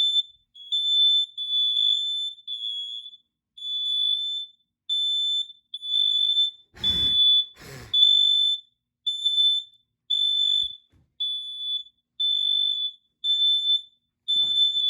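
Several smoke alarms sounding together in response to aerosol test smoke, a piercing high-pitched tone beeping on and off with the units slightly out of step: their sensors are working. Two short rushing noises cut in about seven and eight seconds in.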